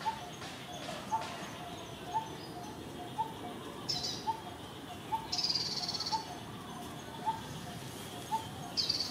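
Birds calling in forest ambience: a short two-note call repeats about once a second, with a few higher chirps, one of them longer, about four, five and nine seconds in.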